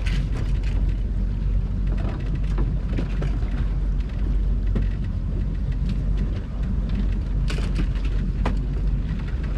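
Motorboat engine running with a steady low rumble, with scattered knocks and clicks on board.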